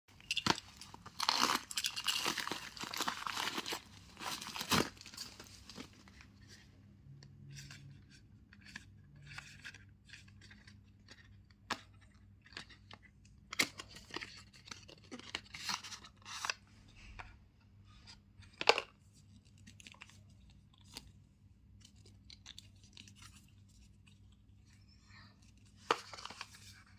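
Packaging being torn open, with dense tearing and crinkling for the first five seconds or so. Scattered clicks and rustles of handling follow, including one sharp click about two-thirds of the way through.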